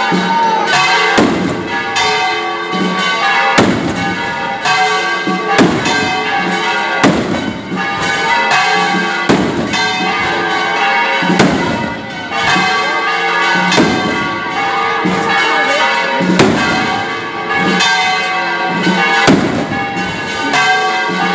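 Church bells ringing a festive peal, many tones sounding together, with a sharp bang about every two seconds.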